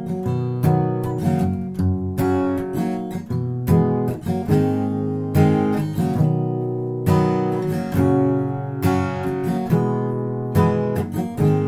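Background music: strummed acoustic guitar chords at a steady rhythm.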